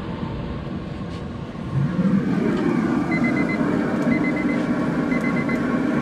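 An electronic alarm beeping in quick groups of four short, high beeps, repeating about once a second from about three seconds in, over a steady low hum that swells up about two seconds in.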